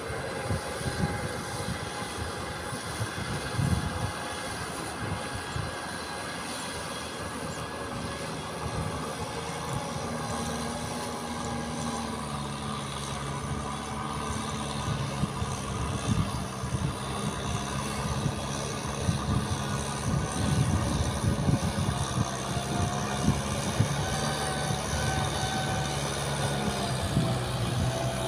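Kubota tractor's diesel engine running steadily as it pulls an implement through flooded paddy mud, growing louder about a third of the way in.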